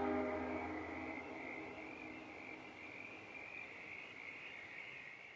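The last of a Nathan P3 three-chime locomotive horn chord dies away in echoes over the first second or two. It leaves a steady, high-pitched chorus of frogs calling.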